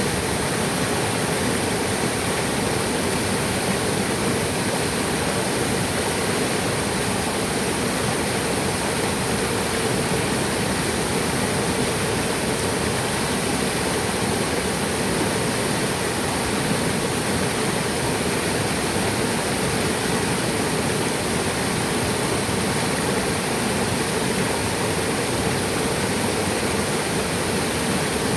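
Waterfall, water pouring and splashing in a steady, unbroken rush with no pauses or changes.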